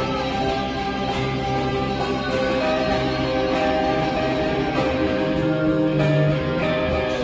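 Live guitar music at an open mic: sustained guitar notes changing every second or so over a steady beat.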